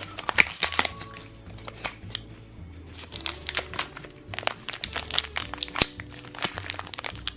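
Plastic toy packaging crinkling and clicking as it is handled and opened, over light background music.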